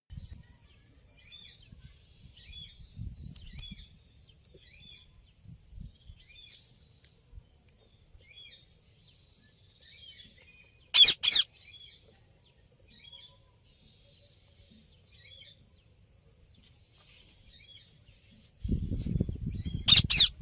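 Indian ringneck parrots calling: many soft chirps throughout, with two loud, harsh screeches close together about eleven seconds in and another near the end. A low rumble joins in for the last couple of seconds.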